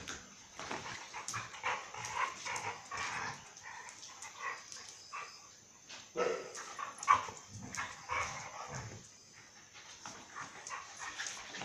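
Two dogs play-fighting, giving short barks and yips amid scuffling, with a louder flurry about six seconds in.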